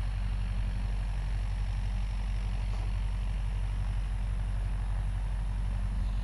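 An engine idling with a steady low drone that does not change pitch or level.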